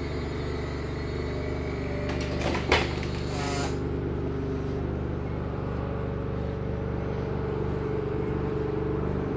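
An engine running steadily with an even low hum. About two and a half seconds in there is a single sharp knock, followed by a brief squeak.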